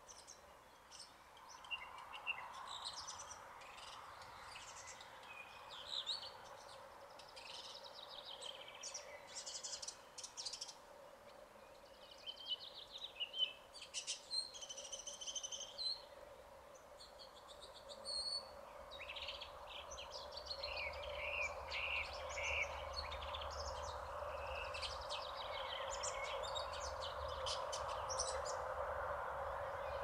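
Male red-backed shrike singing a long, varied song of short chirps, trills and whistled phrases, mimicking the calls of other birds. Under it is a steady background hum that grows louder about halfway through.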